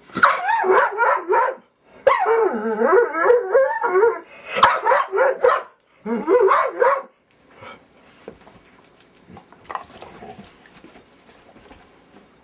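Great Dane barking and whining in four wavering, howl-like bursts over the first seven seconds, a pestering vocal display aimed at getting another dog's chew. After that only faint scattered clicks remain.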